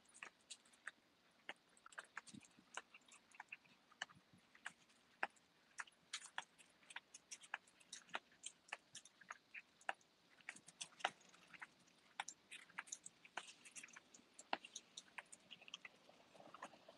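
Small dogs' claws clicking on paving bricks as they walk on leashes: an irregular run of light, sharp clicks, several a second, over near silence.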